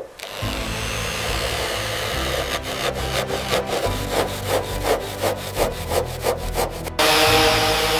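Hand-tool scraping on the car, in even back-and-forth strokes about three a second. About seven seconds in, a power tool starts with a loud steady whine.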